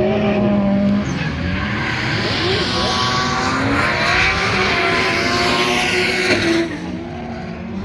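Nissan S14 drift car at high revs while drifting: a steady, held engine note for about a second, then the engine pitch rises and falls under a loud hiss of tyre noise. The tyre hiss stops abruptly about six and a half seconds in, and the sound drops to the engine alone.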